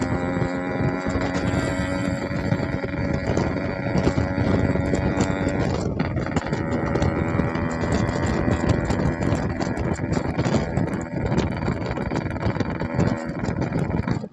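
Yamaha RX-King's two-stroke single-cylinder engine running loudly through its exhaust, a dense rattling note held at a fairly steady pitch.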